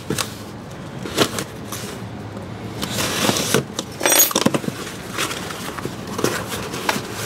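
A knife slitting the packing tape on a cardboard box, with scraping and rustling of the cardboard as the flaps are worked open. A loud rasp about four seconds in is the loudest sound.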